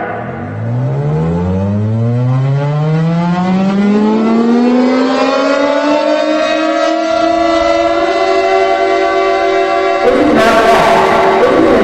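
Civil defense siren winding up: two tones start as a low growl and rise in pitch over about eight seconds, then hold as a steady wail. About ten seconds in, a fuller sound comes in over it.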